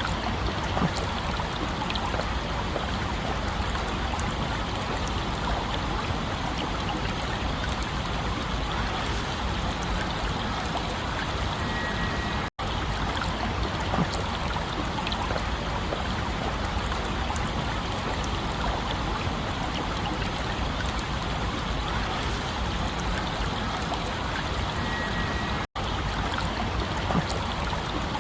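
Stream water running and trickling steadily, cutting out for an instant twice.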